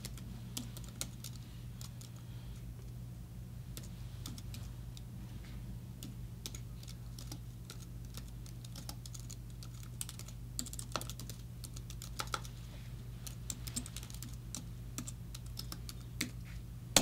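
Typing on a computer keyboard: irregular key clicks, in quick runs and short pauses, over a steady low hum.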